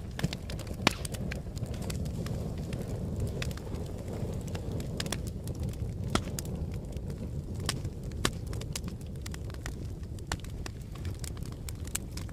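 Wood fire crackling and popping, with irregular sharp snaps over a steady low rumble; one loud pop about a second in.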